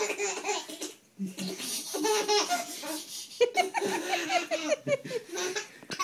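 Baby laughing in repeated bursts of giggles and belly laughs, tickled by a cat licking its bare toes.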